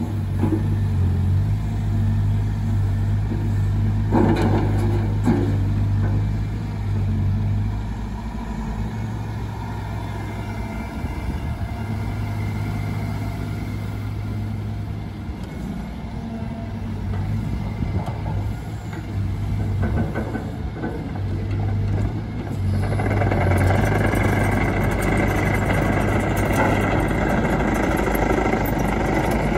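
Mecalac 714MC tracked excavator's diesel engine running steadily while the hydraulic arm and bucket move, with a few short knocks about four to six seconds in. Near the end it gets louder and noisier as the machine travels off on its steel tracks.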